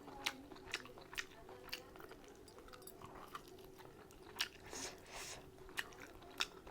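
Close-miked chewing of mutton curry, with sharp wet mouth clicks and smacks coming irregularly, roughly every half second to second, and a brief hissing sound about five seconds in.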